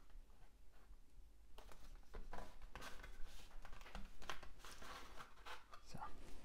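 Paper rustling and soft taps as hands press a glued strip of cardstock down onto a card and smooth it flat. The rustles come in short, irregular bursts starting about one and a half seconds in.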